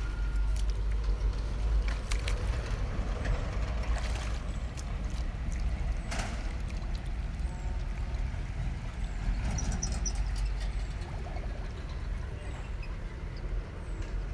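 Water sloshing and splashing around a person wading deeper into a river, with a couple of sharper splashes about four and six seconds in, over a steady low rumble.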